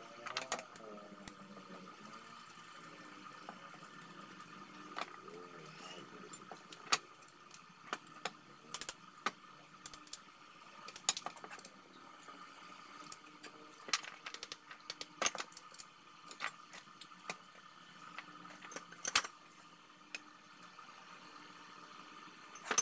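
Irregular metallic clicks and knocks as a corded angle grinder is handled and fitted against a welded steel bracket and base plate, over a faint steady hum.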